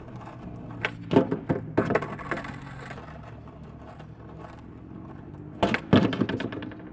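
Skateboard clacking and knocking as it pops and lands on a DIY manual pad, a cluster of hits about a second in and another near six seconds, with wheels rolling in between.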